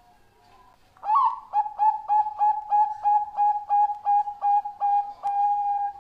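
Zebra dove (Thai-bred 'Bangkok' perkutut) singing: about a second in, a fast run of a dozen or so short staccato coos, about three a second, each opening with a quick upward slur, ending on one longer held note. A sharp click sounds shortly before the end.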